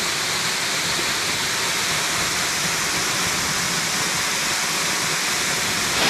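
A waterfall's steady rush of water falling down a rock face into a pool.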